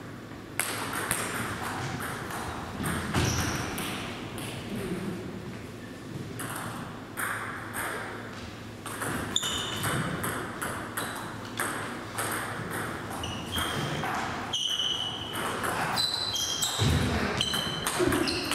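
Table tennis rallies: the ball clicks back and forth off the rackets and the table in quick, sharp hits, with short high-pitched pings in the second half.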